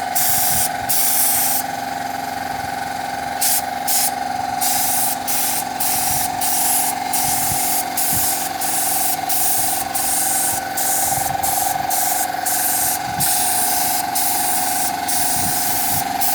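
Compressor-fed paint spray gun hissing as it sprays a second coat, cut into bursts by many short pauses as the trigger is released and pulled again, with a longer pause about two seconds in. Under it, the air compressor runs with a steady hum.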